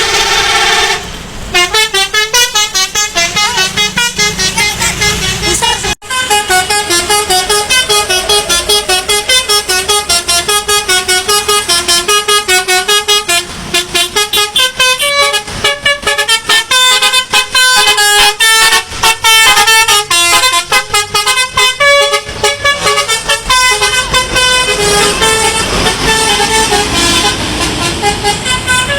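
Bus 'telolet' Basuri multi-tone horn playing fast runs of short toots at changing pitches, like a jingling tune, with a brief break about six seconds in.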